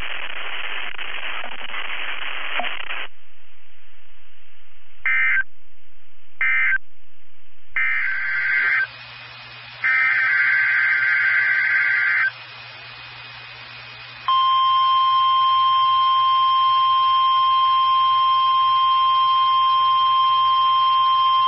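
Weather radio receiver hissing with static for about three seconds. Then come several short, buzzy bursts of digital data tones, the SAME header of a NOAA Weather Radio alert test. Near the middle a loud, steady 1050 Hz warning alarm tone starts and holds, with a low hum under it.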